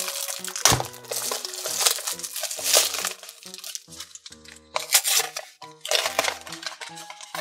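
Plastic shrink wrap crinkling and tearing as it is stripped off a small cardboard blind box, in several bursts, over background music with a steady melody; near the end the box's cardboard flap is pulled open.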